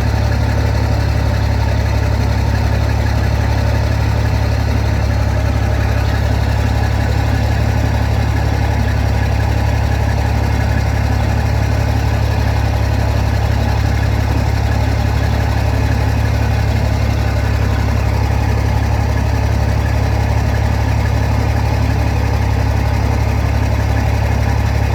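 Peterbilt 387 semi truck's diesel engine idling steadily, run to build up air pressure after a cab air bag replacement. It is a deep, even idle with no change in speed.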